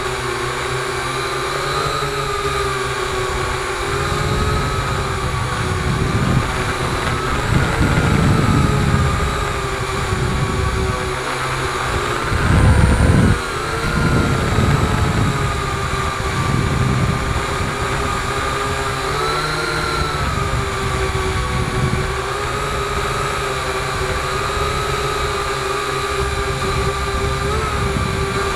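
Multirotor drone's electric motors and propellers whining steadily, the pitch wavering up and down as the drone manoeuvres. Low gusts of wind rumble on the microphone now and then, the loudest about 13 seconds in.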